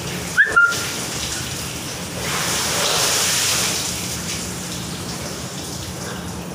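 Water running and splashing out of an electric water heater's element opening as the heating element is worked on, swelling louder for a couple of seconds midway. A sharp click with a short ring about half a second in.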